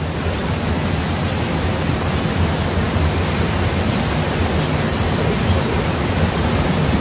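Steady rushing noise of flowing river water, even and unbroken, heaviest in the low end.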